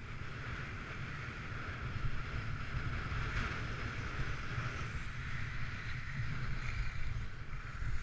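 Skis sliding over groomed snow at speed, a steady scraping hiss that swells about three seconds in, over wind rumbling on the microphone.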